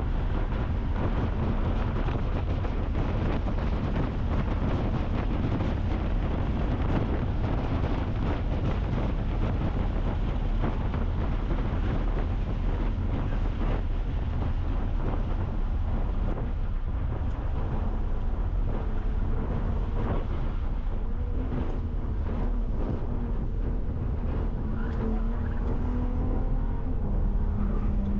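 Car lapping a road course at speed: steady engine and wind noise, with the engine note climbing in pitch near the end.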